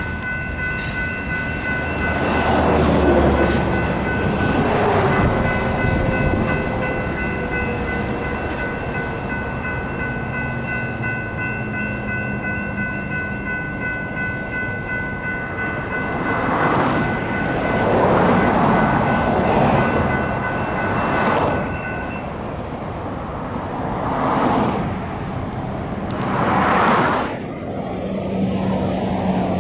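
GS Type 3 electronic crossing bells ringing steadily as the tail of a freight train clears the crossing. The bells cut off about two-thirds of the way through. Several road vehicles pass by along the way.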